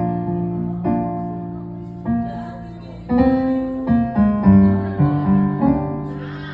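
Piano playing slow chords, each struck and left to ring and fade, roughly one chord a second.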